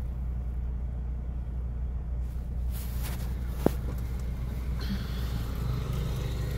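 Steady low rumble of a moving car, heard from inside the cabin, with a single sharp click about halfway through.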